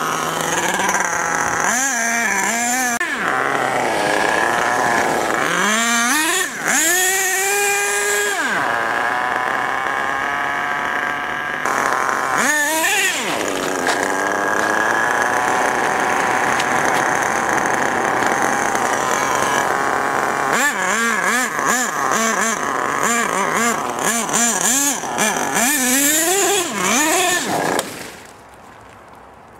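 Small nitro engine of an HPI Savage RC monster truck revving up and down in repeated bursts, with stretches of steady high-pitched running between them, then cutting off suddenly a second or two before the end. The engine is tuned rich on the high-speed needle.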